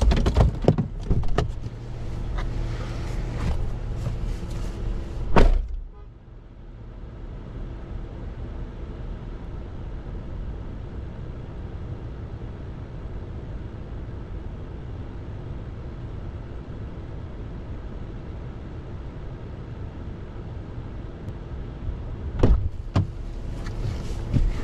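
Chevrolet Silverado pickup idling with a steady low hum. A door shuts with a loud thump about five seconds in, after which the idle sounds quieter. Near the end come a few sharp door clicks and knocks as the driver's door is opened.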